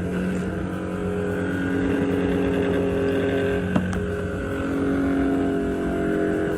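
Electric fan running with a steady hum made of several held tones over an even rush of air noise; a single sharp click about four seconds in.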